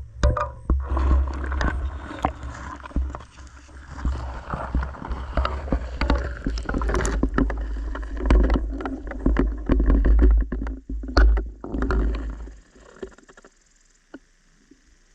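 Water churning and bubbling heard through a GoPro's underwater housing, with a heavy low rumble and many sharp knocks and clicks against the case. It dies away about twelve seconds in, leaving a faint steady hiss.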